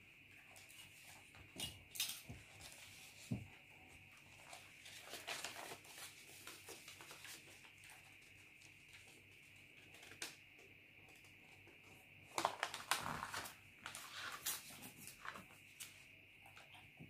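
Sheets of paper being handled and shifted on an exercise book, rustling in two longer stretches, with scattered light taps and scrapes of a pen and plastic ruler. A faint steady high-pitched hiss runs underneath.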